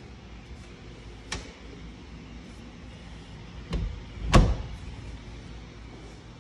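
A closet door pushed shut by hand: a knock, then a louder thump as it closes, about four seconds in. A light click a little over a second in.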